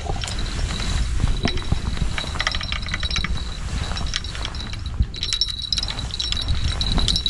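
Fishing reel ratcheting, with runs of rapid clicks over a thin high whine, the busiest stretch in the second half. A low rumble runs underneath.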